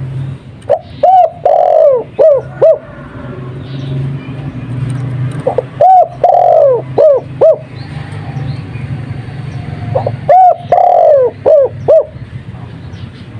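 Spotted dove (tekukur) cooing in the Madura 'kuk 2' style: three phrases a few seconds apart. Each phrase is a couple of short coos, one longer drawn-out coo, then two or three short ones. A steady low hum runs underneath.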